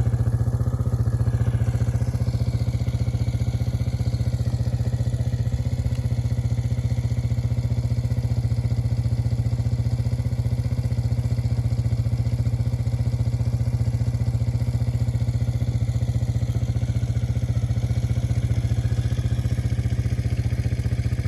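A vehicle engine idling steadily, with an even low hum and rapid regular firing pulses.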